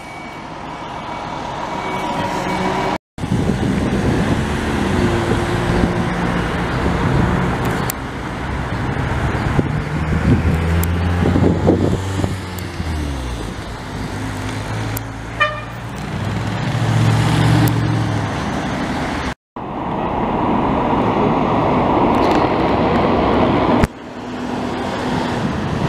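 Fire trucks' diesel engines pulling past in city traffic, the low engine note swelling and fading as each truck goes by, with no sirens. A short horn toot comes about halfway through, and the sound drops out briefly twice.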